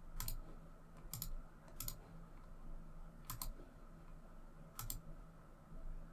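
Scattered clicking at a computer: five short, sharp clicks, irregularly spaced about a second apart, over a faint steady low hum.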